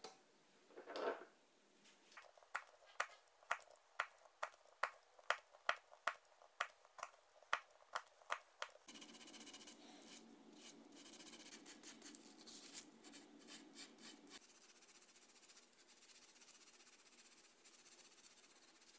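Hand-shaping a snooker cue's tip with abrasive. First a run of sharp clicks, about two a second and growing louder. Then about five seconds of steady rasping as sandpaper is rubbed over the tip, going fainter near the end.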